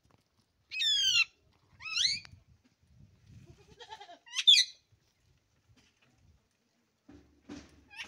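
Three loud, high-pitched quavering animal calls, about a second apart at first and then again at four and a half seconds, with another starting at the very end.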